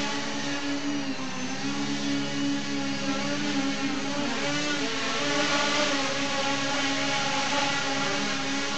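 Tricopter's three 1000KV brushless motors and 8x4.5 propellers buzzing steadily as it hovers low, the pitch dipping and wavering briefly about one second in and again around four seconds in as the throttle changes.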